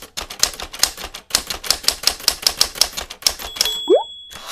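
Typewriter keys striking in quick succession, about six a second, then a bell ding about three and a half seconds in with a short rising sound under it.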